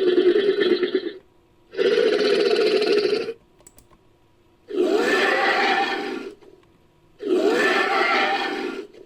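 Synthetic dinosaur roars made for a Skorpiovenator: a series of separate roars about a second and a half long with short pauses between them, the later ones wavering in pitch.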